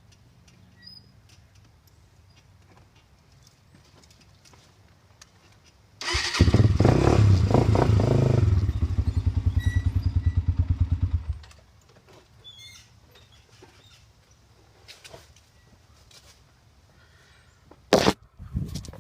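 Honda TRX 300EX quad's single-cylinder four-stroke engine with an FMF Powercore 4 muffler starts about six seconds in. It runs louder for a couple of seconds, settles into a fast, even thumping idle, and is shut off about five seconds later. A single sharp knock comes near the end.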